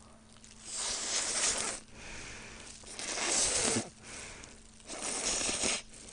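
A person slurping long glass noodles (dangmyeon) into the mouth, three slurps each about a second long.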